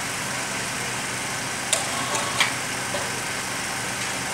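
Steady engine-like hum with two sharp metallic clinks, about one and three-quarter and two and a half seconds in, from steel beams and fittings being knocked and worked loose while a steel frame is dismantled.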